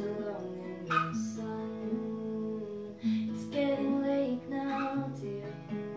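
A woman singing with her own acoustic guitar accompaniment, holding long sung notes over the guitar.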